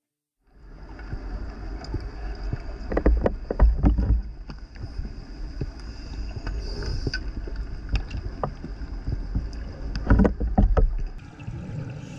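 Underwater ambience picked up by a camera in its housing: a steady low rumble with a thin, steady high whine, and two clusters of clicks and gurgles about three and ten seconds in.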